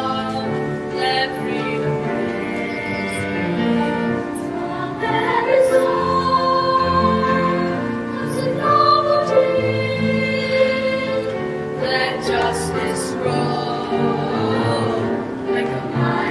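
Music: a choir singing a slow piece in long held notes.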